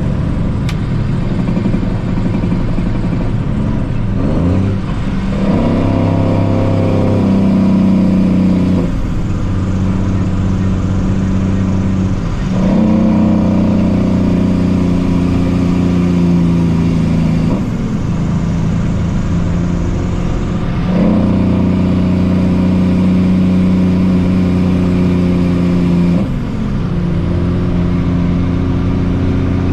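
Heavy diesel engine running continuously. Its pitch and load shift in steps every few seconds.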